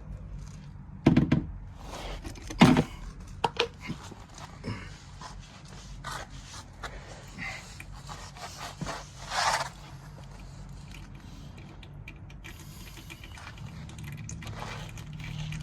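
Car parts and tools being handled during repair work: a few sharp knocks and clunks in the first few seconds, scattered clicks, then a short scrape about nine seconds in.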